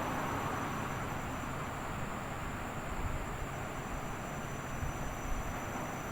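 Washing machine running with a steady whooshing rumble and a faint constant high whine above it.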